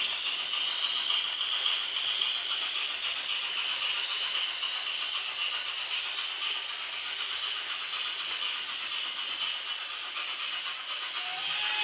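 Hornby Kidwelly Castle model steam locomotive running with its train, its digital sound decoder giving a steady steam hiss over the rattle of wheels on the track. A whistle tone rises and then holds steady near the end.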